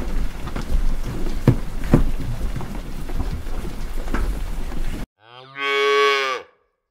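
Shallow river water rushing, with a few sharp splashes from a wading black bear. About five seconds in the water noise stops abruptly, and a cow gives one long moo, the loudest sound here.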